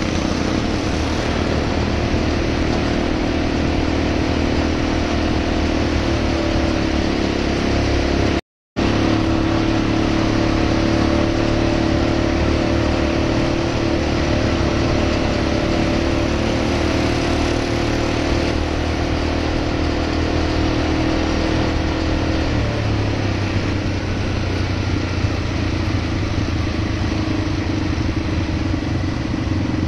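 ATV engine running steadily while riding along a road, a constant mid-pitched drone. The sound cuts out completely for a moment about a third of the way in. The engine note shifts slightly a little past two-thirds of the way through.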